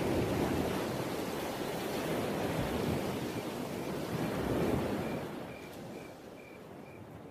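A rushing wash of noise like surf, swelling and easing about three times, then fading away. In the last few seconds a faint, high chirp repeats about twice a second.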